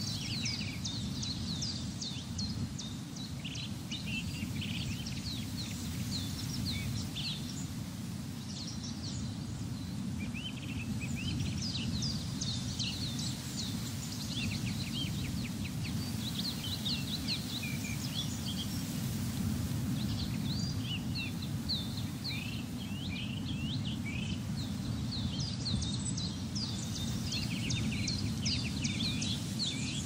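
Small songbirds chirping and twittering in quick clusters of short high notes throughout, over a steady low rumble of wind.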